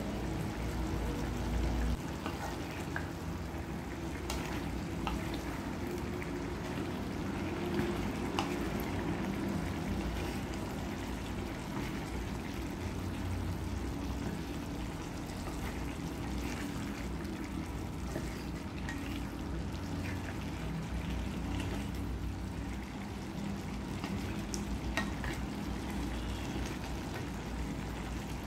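Pork, carrots and potatoes sizzling gently in a pan over low heat as the lid comes off and a wooden spatula stirs them, with scattered light taps and scrapes against the pan.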